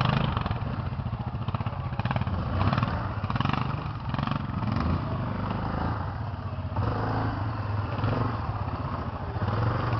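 Quad bike (ATV) engine running as it crawls slowly over rough, rutted forest ground. The engine note rises and falls with the throttle and picks up about seven seconds in.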